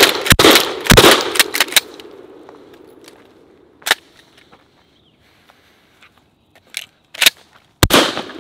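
Cimarron 1897 12-gauge pump shotgun slam-fired from the hip, the action worked for each shot. There is a quick pair of shots in the first second with a long echo dying away, a single shot near four seconds, and two more close together near the end.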